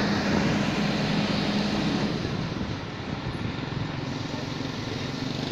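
Excavator engine running steadily, its low hum easing off and the sound dropping a little about two to three seconds in.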